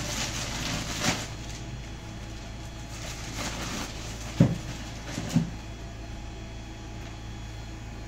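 A thin plastic carrier bag rustling and crinkling as it is handled, with two short thumps a second apart in the middle, over a steady low hum.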